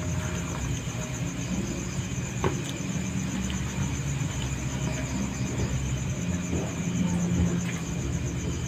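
Steady low background rumble with crickets trilling continuously high above it, and one faint click about two and a half seconds in.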